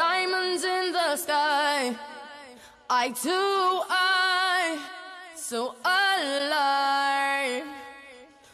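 Background pop music: a female voice sings three long, wavering held phrases, each fading away before the next begins.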